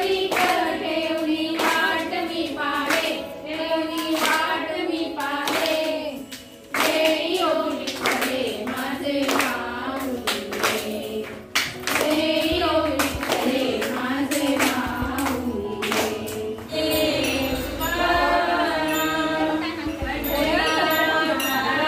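Devotional song: singing over music with a regular beat of sharp percussive strikes.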